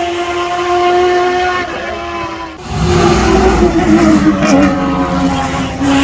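Porsche 911 RSR race car's naturally aspirated flat-six engine running at high revs with a steady note. About halfway through it becomes louder and fuller, and its pitch drops in steps.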